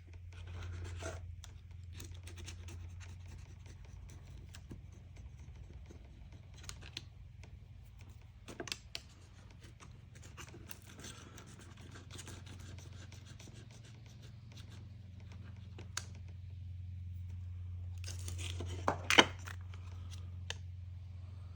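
Intermittent scraping and scratching of a blade working old polarizing film and residue off an LCD panel's glass, with scattered small clicks and a sharp click near the end. A low steady hum runs underneath.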